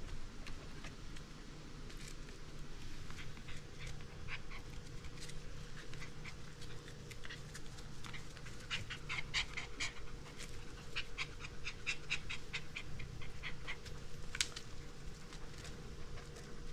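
Border collie puppy panting as it tugs at a rope toy, with quick runs of short clicks and scuffs, loudest in the second half.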